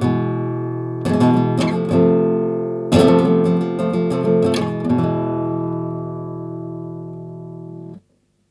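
Cordoba GK Pro Negra nylon-string guitar strummed: a run of chords, several in quick succession, then a final chord left ringing for about three seconds before it cuts off sharply near the end.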